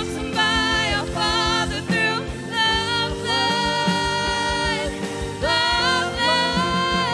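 Live worship band playing: drums, bass, guitars, keyboard and violin under sung melody lines.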